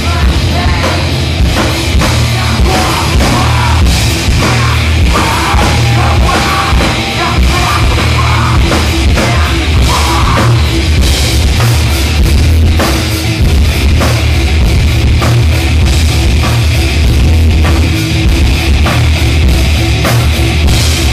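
Loud live heavy rock from a band, with a pounding drum kit, distorted guitars and heavy bass, and some singing.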